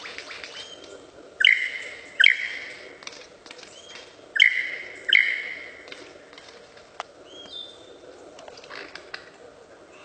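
Male lyrebird singing: four loud ringing calls in two pairs, each starting sharply and fading, followed by a click and softer calls near the end.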